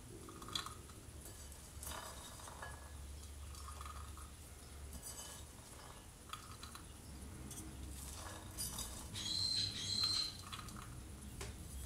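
Shelled English peas dropped a few at a time into a small glass measuring cup: faint, scattered light taps and clicks of peas on glass. About nine seconds in comes a louder, higher glassy rattle lasting about a second.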